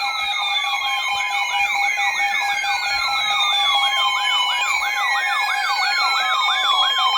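Electronic sirens sounding together: a fast yelp rising and falling about three times a second, over slower falling wails and a steady tone.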